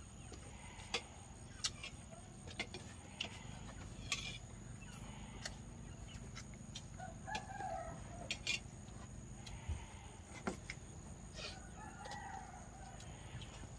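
Faint chicken calls and clucking in the background, heard about halfway through and again near the end, over a low steady hum. Scattered light clinks of spoons against plates and bowls are the loudest sounds.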